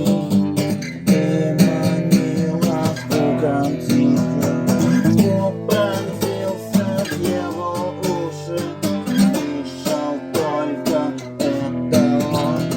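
Acoustic guitar playing chords, plucked and strummed.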